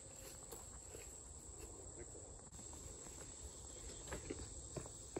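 Faint, steady high-pitched chirring of insects in the surrounding grass and trees, with a few soft scuffs or clicks in the last second or so.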